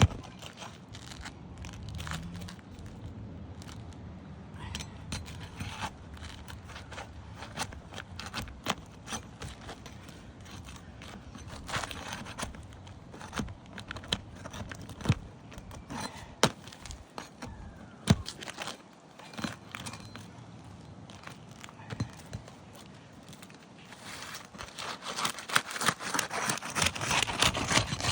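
Irregular clicks, scrapes and crackles from handling and working brittle asphalt roof shingles, thickening into dense crackling near the end.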